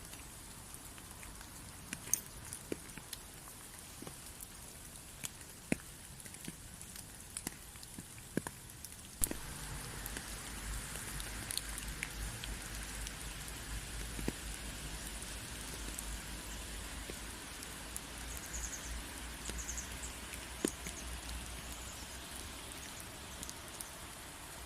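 Rain with scattered, distinct drops ticking. About nine seconds in it turns heavier and denser, a steady hiss with a low rumble beneath.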